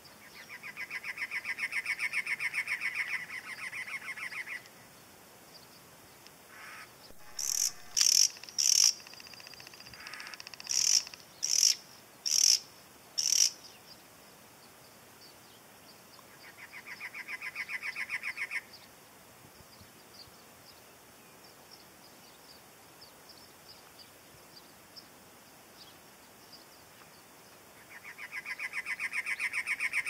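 Cactus wrens singing: three bouts of rapidly repeated notes, each a few seconds long, at the start, a little past the middle, and near the end. Between the first two bouts come about eight sharp, high notes, the loudest sounds here.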